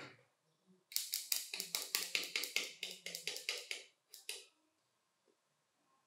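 A quick run of sharp clicks, about six a second for some three seconds, then two more clicks.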